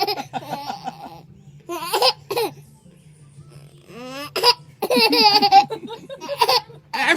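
Baby laughing at a pretend sneeze: several bursts of quick, chopped giggles with short pauses between them.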